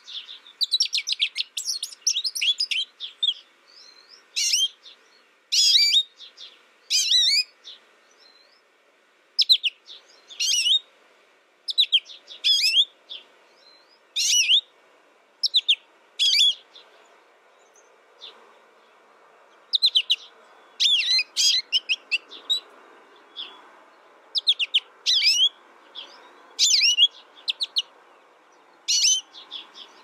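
Goldfinch singing: short bursts of rapid, high twittering notes, a dense run at first, then separate phrases every second or two.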